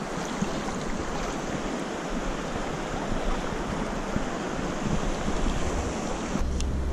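River current rushing and lapping around a wading angler's legs, close to the microphone. A low steady rumble comes in near the end.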